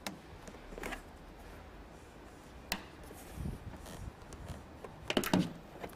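Plastic clicks and rubbing as the factory door mirror's base and rubber seal are worked and slid off the door, with soft knocks in the middle and a quick cluster of louder clicks about five seconds in.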